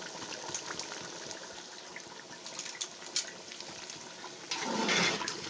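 Thick tomato stew bubbling at a boil in a pot: a steady sizzle with many small bubble pops. About four and a half seconds in, a louder rush of noise lasts about half a second.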